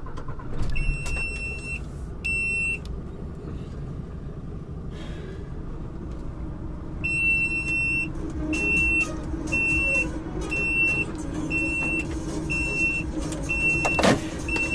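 Truck's diesel engine running just after starting, with a steady rumble that grows a little fuller about halfway through. Over it a high electronic cab warning beep sounds twice early on, then one long beep and short beeps about once a second; a single sharp knock comes near the end.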